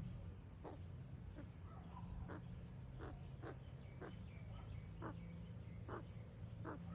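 Australian magpie giving short, separate calls, about one or two a second, over a steady low hum.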